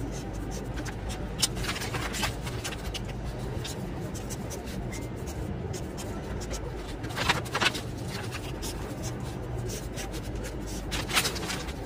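Printed paper sheets being handled and leafed through, giving a few short crackles of paper, the loudest a pair about two thirds of the way in and one near the end, over a steady low hum.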